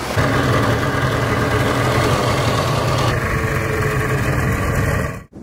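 Boat engine running at a steady pitch, cutting off abruptly near the end.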